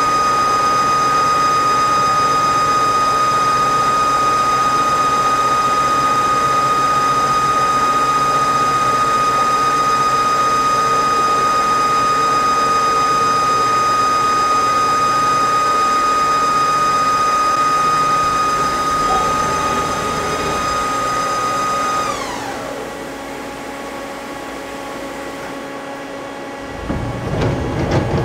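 Mazak CNC lathe running a thread-milling cycle, with a loud steady high whine from the spindle drive over machine noise. About 22 seconds in the whine falls in pitch and dies away as the spindle stops at the end of the program, and a few low thumps follow near the end.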